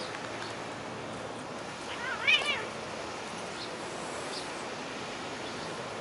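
A tabby cat gives one short, wavering yowl about two seconds in, a defensive cry as one cat is set upon by another, over a steady background hiss.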